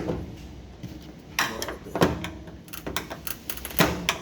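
Frigidaire oven door latch and door being worked by hand: four sharp clunks, at the start, about a second and a half in, about two seconds in and near the end, with lighter rattles between.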